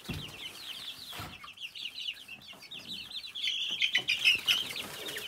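A brooder of young chicks peeping: many short, high cheeps overlapping without pause, busiest and loudest about four seconds in. A couple of brief rustles come near the start.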